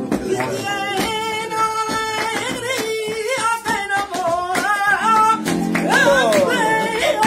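Flamenco bulerías: a male singer holds long, wavering melismatic lines, with a long falling run about six seconds in. He is accompanied by flamenco guitar and palmas (rhythmic hand clapping).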